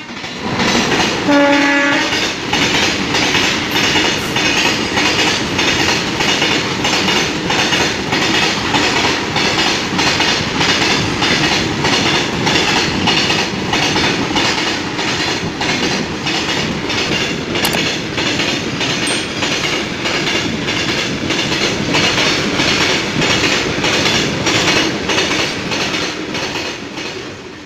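Indian Railways goods train of covered wagons passing close by behind an electric locomotive: a steady, regular clickety-clack of wheels over rail joints with running rumble. The locomotive's horn sounds briefly about a second in.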